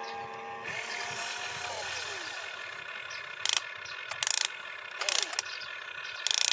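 An RC excavator's electric gear motors whine as the boom and arm move, the pitch gliding up and down. Several short, loud bursts come in the second half as the bucket works into the soil.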